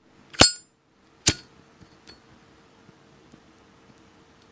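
Zippo lighter's metal lid snapping with a sharp click that rings briefly, followed about a second later by a second, quieter click.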